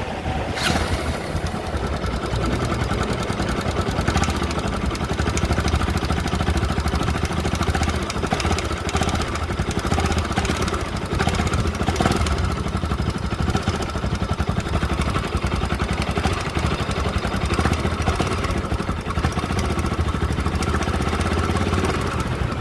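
Bajaj Pulsar NS200's single-cylinder engine idling steadily with a fast top-end tick-tick clatter over the running note. The noise is the complaint the mechanic sets out to trace in the timing chain, tensioner and guides; on opening the head he finds the camshaft badly worn.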